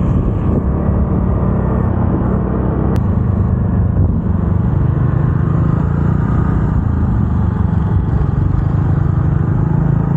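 A motorcycle or scooter engine running steadily while riding, mixed with heavy wind rumble on the microphone. There is a single sharp click about 3 seconds in.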